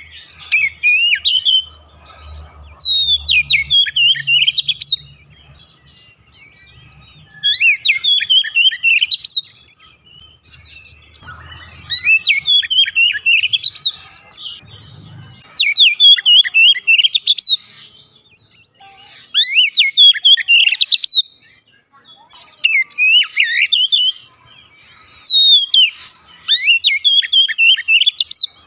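Oriental magpie-robin singing: loud bursts of quick, varied whistled notes that sweep up and down, each phrase one to three seconds long and coming about every three to four seconds, with short pauses between.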